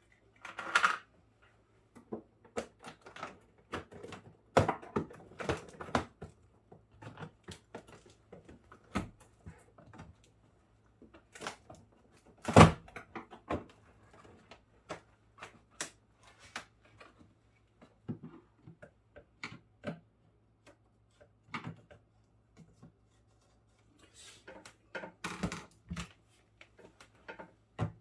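Irregular clicks, taps and knocks of hands and tools working on the plastic interior parts and bolts of a Samsung Zipel refrigerator being taken apart, with one louder knock about halfway through.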